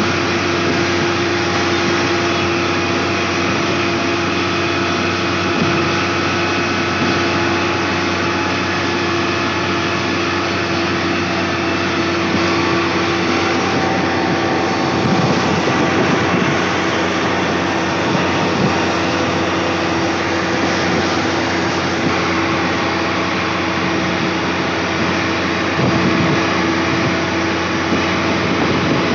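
XGMA motor grader's diesel engine running steadily as the grader drives along the road, heard from the operator's seat, with a constant hum.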